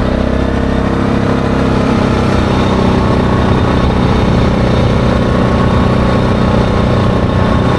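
ATV engine running steadily at a constant cruising pace, with a steady rush of wind and trail noise.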